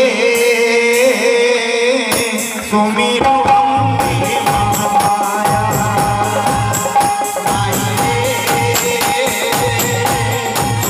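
Live Hindi devotional song (Devi bhajan): a male singer holds a long, wavering note over harmonium for about three seconds, then the band comes in with dholak and pad drums playing a steady rhythm under a held keyboard organ note.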